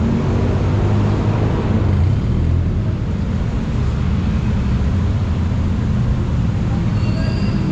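Steady low rumble with no distinct events. A brief, faint high whistle comes near the end.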